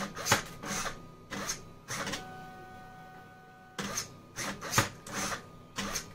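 A DIY wire cutting machine at work. There are two clusters of sharp clicks and servo buzz as the servo-driven cutter works, one in the first two seconds and another from about four seconds in. Between them is a steady, even-pitched whine from the stepper-motor 3D-printer extruder feeder pushing the wire.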